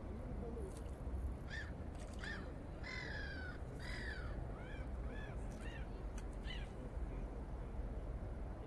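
A bird calling outdoors: a run of about nine short calls, each rising and falling in pitch, one after another for some five seconds, starting about a second and a half in.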